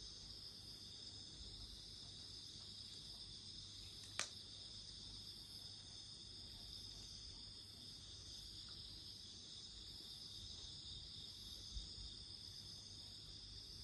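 Faint, steady high chirring of night insects, with one sharp pop from the campfire about four seconds in and a smaller one near the end.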